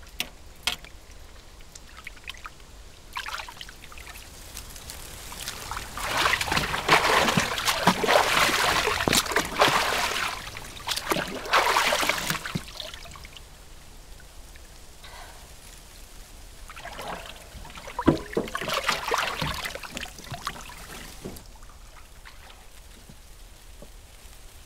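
Bathwater splashing and trickling in a tub as someone scoops it over her shoulders: a long spell of splashing in the middle, then a shorter one later that starts with a sharp knock.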